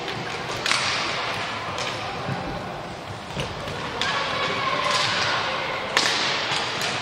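Inline hockey play on a wooden gym floor: skate wheels rolling with several sharp clacks of sticks and ball, the loudest about six seconds in, echoing in a large hall.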